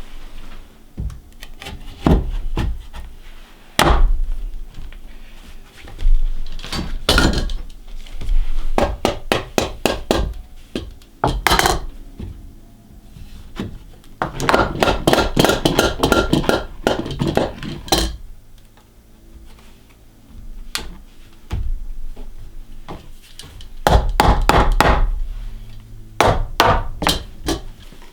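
Carpentry on wooden stair parts: irregular knocks and hammer blows on wood, with a couple of longer runs of quick strikes.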